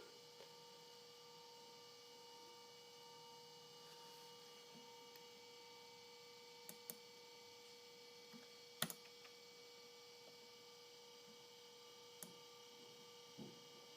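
Near silence: a faint steady electrical hum with a few soft clicks, the clearest about nine seconds in.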